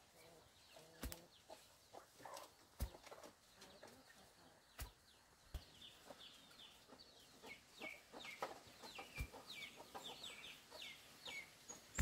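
Several separate dull thuds of a bamboo pole being jabbed down into soil to make post holes. Chickens cluck in the background, and a quick run of short bird chirps comes in the second half.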